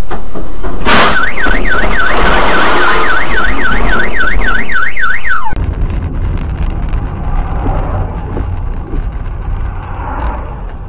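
A sudden loud noise about a second in, then a car alarm warbling, its tone sweeping up and down about three times a second. It cuts off abruptly partway through, giving way to the quieter rumble of a vehicle driving.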